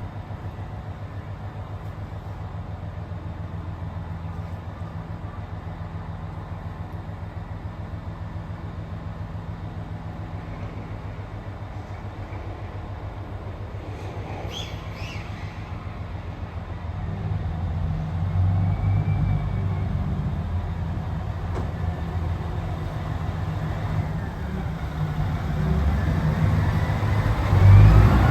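Train running on the rails: a steady low rumble that grows louder about two-thirds of the way through, with a few faint high squeals near the end.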